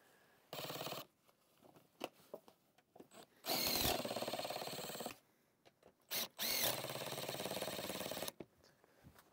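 Cordless 3/8-inch-drive power ratchet running in three bursts, a short one and then two longer ones, driving the bolts of snow-bar clamps down onto a standing-seam metal roof.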